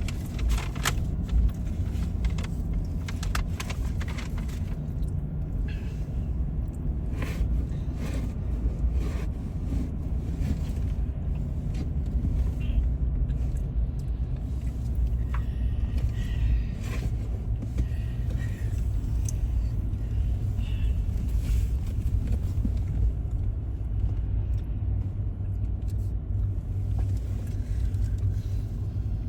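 Steady low road and engine rumble inside the cabin of a moving vehicle, with a few faint clicks here and there.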